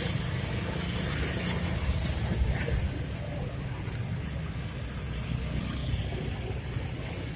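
Steady low background rumble, with a few faint clicks of small parts being handled.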